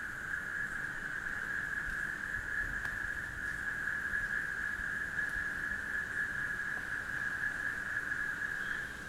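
Night chorus of frogs and crickets: one steady, high-pitched drone that drops back near the end.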